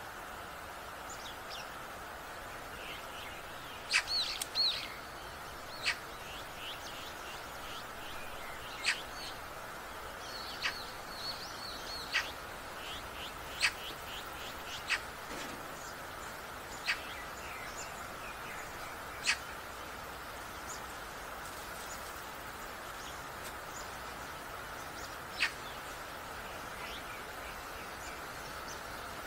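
Wild birds calling: sharp single notes every few seconds and a couple of short runs of chirps, over a steady outdoor background hiss.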